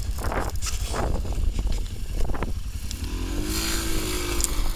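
A small motor vehicle's engine runs amid heavy wind rumble on the microphone in a blizzard. About three seconds in, the engine note rises and then holds steady at a higher pitch.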